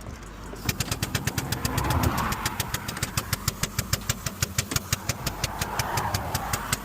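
An engine starts up about a second in and runs with a steady rapid knocking, about seven knocks a second, over a low hum.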